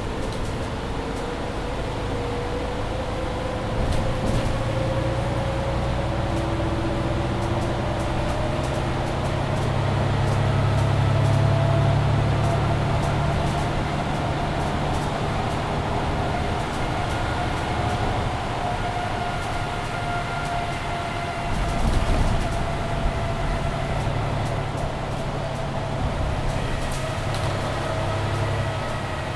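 Mercedes-Benz Citaro C2 Hybrid city bus running under way, heard from inside: a steady low engine hum with a whine that climbs slowly in pitch for about eighteen seconds as the bus gathers speed, then eases down slightly. Small rattles throughout and a short bump a little past the middle.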